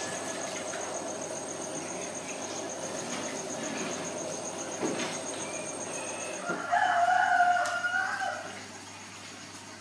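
A rooster crowing once, a single call of nearly two seconds about two-thirds of the way in, over a steady background hiss.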